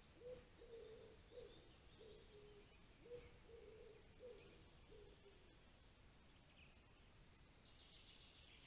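Faint forest birdsong: a low-pitched call in short repeated notes, about two a second, that stops about five seconds in, with thin higher chirps and whistles over a soft background hiss.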